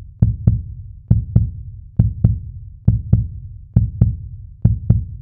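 Outro music: a deep double beat, two low thumps close together, repeating a little more than once a second.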